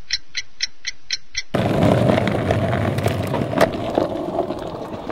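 Clock ticking sound effect, about four ticks a second, cutting off abruptly about a second and a half in. It is replaced by a louder noisy outdoor rush with a few sharp clicks.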